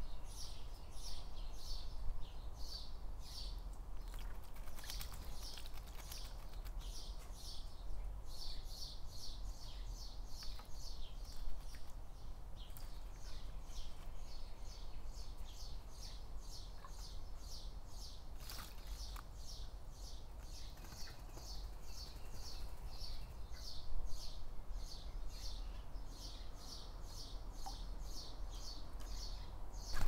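Young blackbird begging for food: a long run of short high chirps, about three a second, pausing briefly now and then.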